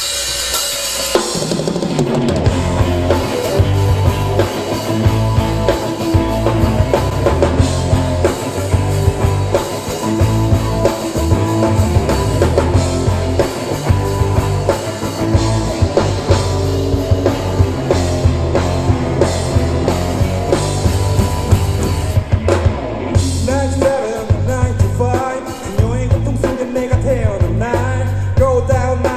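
Live rock band playing an instrumental passage: drum kit with kick and snare, electric guitars and bass through amplifiers, with a brief break a little past twenty seconds in.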